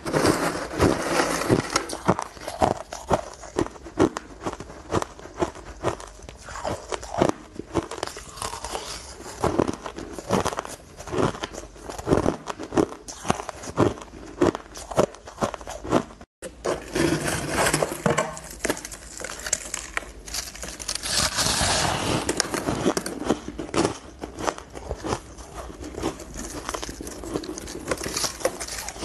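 Crushed ice crunched and chewed close to a lapel microphone, a rapid, irregular run of sharp cracks, with a metal spoon scraping through ice in a plastic container. About halfway through the sound breaks off for an instant, then goes on with denser crunching.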